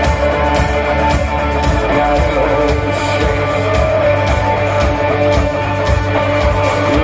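Rock band playing live and loud: electric guitar, bass guitar and drums with a steady beat, between sung lines of the song.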